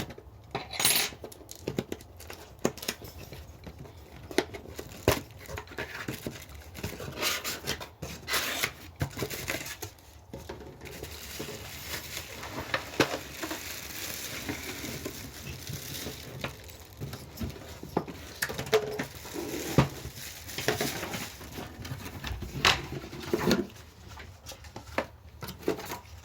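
A box being opened and unpacked by hand: a long run of taps, knocks and small clinks, with stretches of rustling and tearing packaging.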